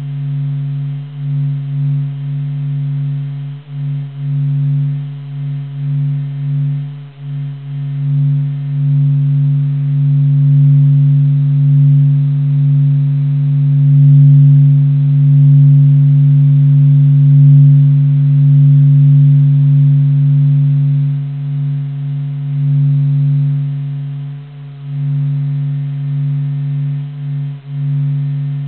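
NASA sonification of the Sun: a low, steady hum with a fainter higher tone above it. The hum flutters with quick dips in loudness at first, swells louder through the middle, and flutters again near the end.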